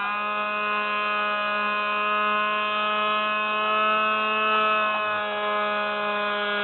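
Electric motor and propeller of a SpyHawk FPV model plane running steadily at part throttle: a loud whine held at one pitch, wavering only slightly.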